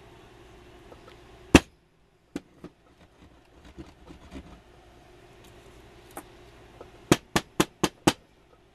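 Sharp taps and clicks from a soldering iron and a reel of solder being handled on a workbench: one loud tap, a few lighter clicks, then five quick taps, about four a second, near the end.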